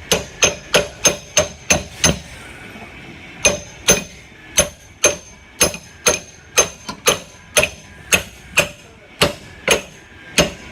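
A hammer striking metal in a steady run of sharp blows, about two to three a second, with a short pause about two seconds in. Each blow rings briefly. The work is on a hydraulic ram being rebuilt.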